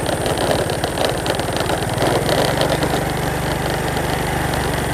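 A vehicle engine running steadily, with an even low pulsing throughout.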